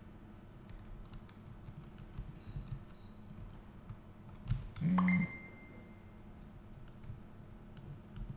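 Scattered computer keyboard and mouse clicks over a low hum, with one louder short thump and a brief pitched sound about five seconds in.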